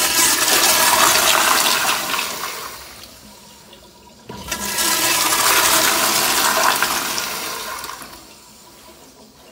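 Toilet flushing twice: a rush of water swirling down the bowl that fades out, then a second flush starting suddenly about four and a half seconds in and dying away near the end.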